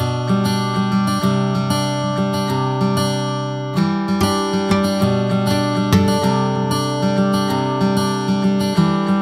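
Background music on acoustic guitar: strummed chords and picked notes with a steady rhythm.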